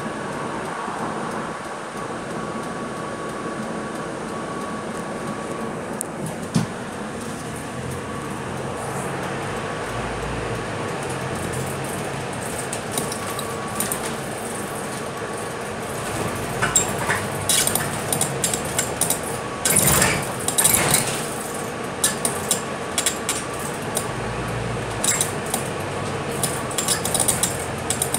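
Interior of a Scania K320UB city bus under way: steady engine and driveline hum with a thin whine. From about halfway through, interior fittings rattle and clink over the road, loudest around twenty seconds in.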